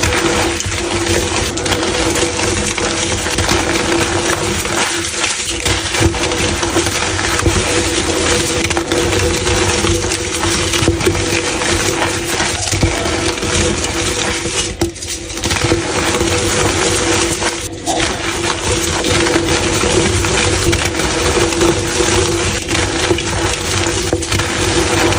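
Blocks of gym chalk being crushed, crunching and crumbling continuously in many small crisp cracks, with a steady low hum underneath.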